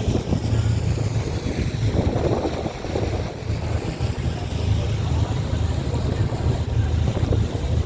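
Motorboat engine running steadily under way, a constant low drone, with water noise and wind buffeting the microphone.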